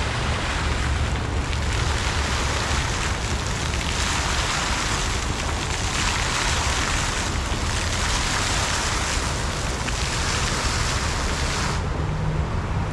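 Garden fountain water splashing and rushing steadily, swelling and easing in strength every second or two.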